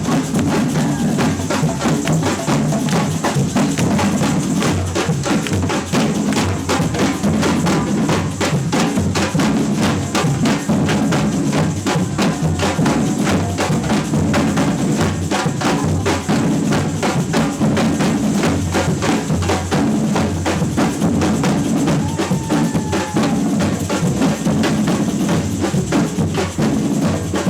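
Samba percussion band (batucada) playing a funk-samba groove: deep bass drums pulsing under dense, fast strokes of smaller drums and shakers, steady and loud throughout.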